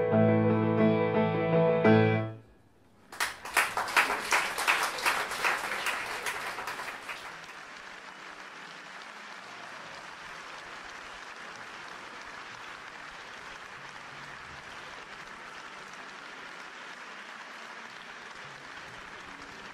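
Music ends on a held chord, then after a short pause an audience starts applauding loudly about three seconds in. After a few seconds the clapping settles to a steady, quieter level.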